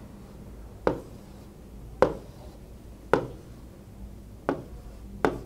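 Stylus tapping against the glass of a large touchscreen display while digits are written by hand: five sharp taps, roughly one a second.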